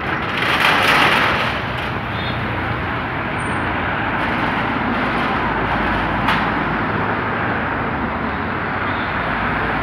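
A line of cars and SUVs driving past close by one after another: a steady rush of engine and tyre noise, loudest about a second in.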